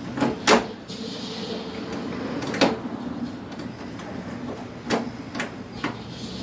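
Several sharp plastic knocks and clicks, one about half a second in, one in the middle and two close together near the end, as the air conditioner's casing and parts are handled during reassembly, over a steady low hum.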